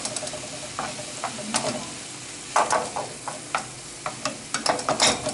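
Food sizzling in a frying pan while a utensil stirs it, with irregular scrapes and knocks of the utensil against the pan over a steady hiss.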